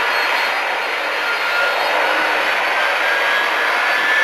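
Boeing 767-300ER airliner's jet engines running as it taxis slowly: a steady rushing noise with a faint whine that gradually rises in pitch.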